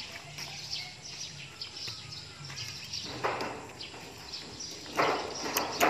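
Small birds chirping over and over in the background, with a few short scuffing noises from about three seconds in, the loudest near five seconds.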